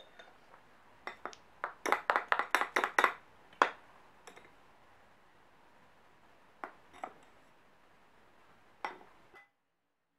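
Metal spoon clinking against a glass bowl while stirring a powdered-sugar and milk glaze: a quick run of clinks, then a few single taps, stopping abruptly near the end.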